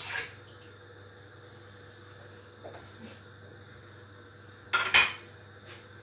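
Kitchen dishes and utensils being handled on a counter: a short clatter at the start, a couple of faint taps, then a louder sharp clatter of dishes about five seconds in, over a steady low hum.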